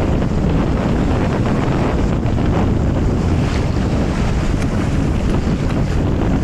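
Steady wind rumbling on the microphone over sea water lapping, with light splashing from a dog swimming.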